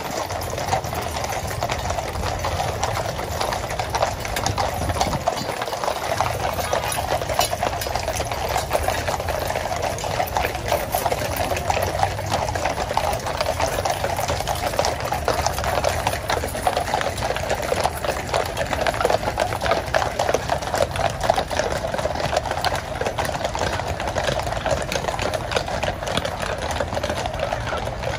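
Hooves of many cavalry horses walking on a paved road, a dense, steady clatter of overlapping clip-clops.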